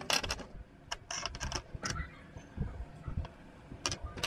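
Small hard plastic assembly-puzzle pieces clicking and tapping as they are handled and set down on a desk: a quick cluster of clicks at the start, several more between one and two seconds in, and another near the end.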